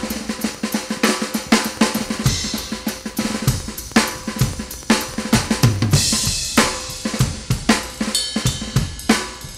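Background music built on a drum-kit beat: kick drum, snare and cymbals playing a steady rhythm.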